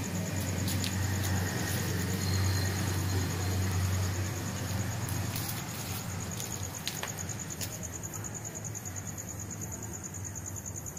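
A night insect trilling steadily on one high pitch with a fast, even pulse, over a low rumble that fades out about halfway through. A few faint clicks.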